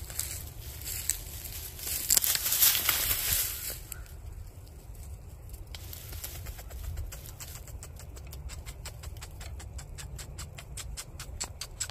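A loud rustle through dry leaves about two seconds in, then a nine-banded armadillo rooting in the leaf litter: rapid crackling scratches, about five or six a second, from about halfway through.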